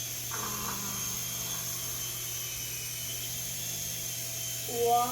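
Small electric motor of an indoor toy helicopter whining steadily at a high pitch. Near the end a cat meows loudly with a long, bending cry.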